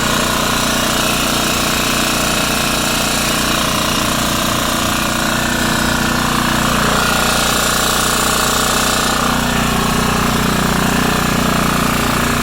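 A machine running steadily and loudly, an even hum with a dense rattling hiss over it.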